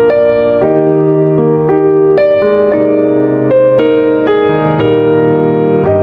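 Background music: a keyboard, piano-like in tone, playing a slow melody over held chords, with a new note about every half second.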